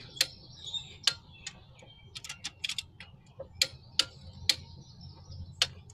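Ratchet wrench clicking in sharp, irregular ticks while a cylinder head bolt is turned through its 90-degree angle-torque step.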